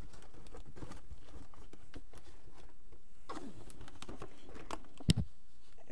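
A person walking about and handling things, with scattered light rustles and clicks and one sharp knock about five seconds in.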